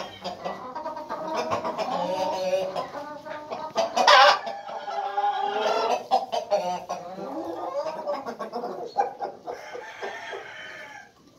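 A flock of silver-laced Wyandotte chickens clucking and calling over one another, with one loud call about four seconds in.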